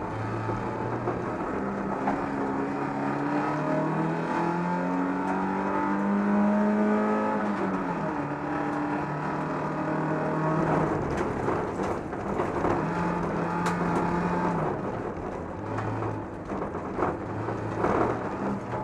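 Folkrace car's engine heard from inside the stripped cabin under hard acceleration, its pitch climbing through a gear and dropping about eight seconds in, then pulling up again and easing off. Knocks and rattles from the car's body come near the end.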